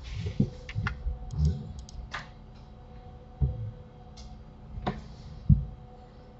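Computer keyboard keys and mouse buttons clicking: scattered, irregular sharp clicks and soft knocks over a faint steady hum.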